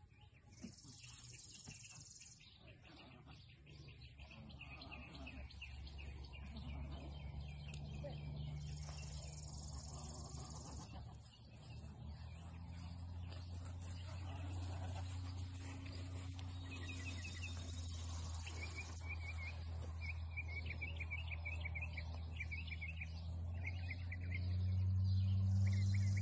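Outdoor ambience: an insect's buzzing calls come back every seven or eight seconds, each lasting about a second and a half, with birds chirping, over a low steady hum that grows louder toward the end.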